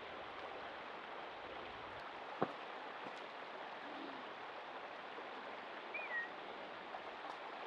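Shallow forest creek running, a steady rush of water. About two and a half seconds in comes one sharp knock, the loudest sound, and about six seconds in a brief high note that slides down in pitch.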